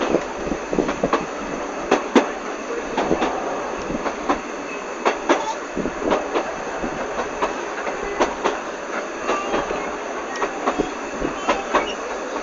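Narrow-gauge railway train running along the track: a steady rolling rattle with irregular clicks and knocks from the wheels.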